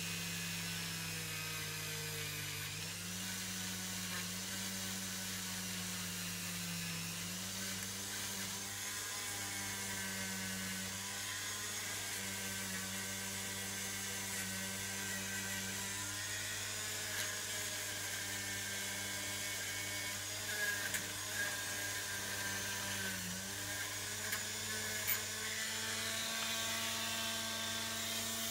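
Rotary tool on a flexible shaft running steadily with a high whine, spinning a small wire brush against a steel scissor blade to scrub off rust. Its pitch steps and dips several times, with a few short scratchy bursts of brush-on-metal contact in the last third.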